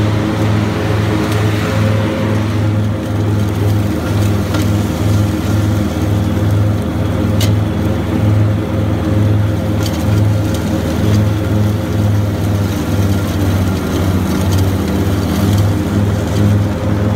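Grasshopper 325D mower's diesel engine running steadily with the Power Vac blower and cutting deck engaged, a pulsing low hum under a steady drone. A few sharp clicks come through over it.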